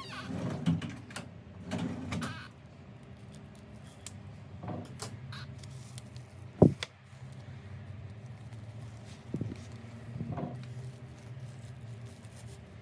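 Handbag and packaging being handled: intermittent rustling and shuffling, with one sharp click about two-thirds of the way through.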